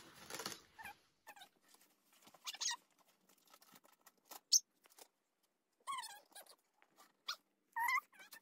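Paper and card rustling and crinkling in short separate bursts as a greeting card and wrapping are handled, with a few brief high squeaks, two of them around six and eight seconds in.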